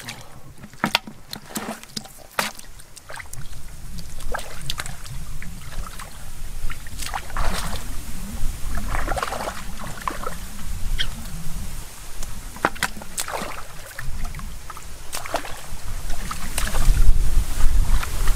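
Hands splashing and sloshing in shallow muddy water while grabbing fish from the mud, with many short sharp splashes and slaps. Wind rumbles on the microphone over the last couple of seconds.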